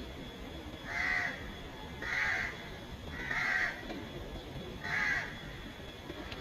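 A bird calling four times, roughly a second apart, each call short.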